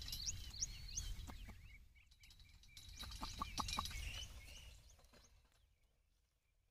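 Faint bird chirps: short, quick rising notes in the first second and again around three to four seconds, over a low rumble, fading to near silence in the last two seconds.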